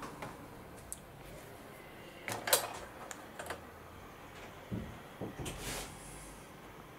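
Irregular light clicks and knocks of small hard objects being handled and set down, loudest in a short cluster about two and a half seconds in and again in a group about five seconds in.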